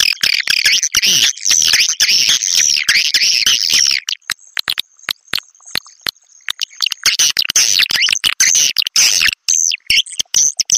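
Swiftlet calls: dense, rapid high twittering chirps. They break off for about three seconds in the middle, leaving sharp clicks and a faint thin high tone, then resume. This is the calling sound used to lure swiftlets to a nesting house.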